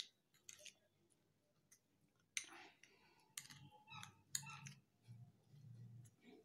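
Faint, irregular clicks and scrapes of a metal spoon stirring a thick, damp paste in a small glass bowl, a few strokes a little louder about halfway through.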